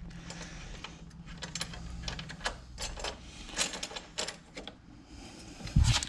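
Hand ratchet clicking in quick, uneven runs as a 12 mm bolt is worked out at the bottom of a 1988 Honda Goldwing 1500's front fork, with a dull thump near the end.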